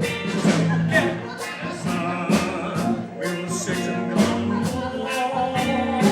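Music from a stage-musical song: band accompaniment with a steady beat of drum and cymbal strokes about twice a second under sustained chords.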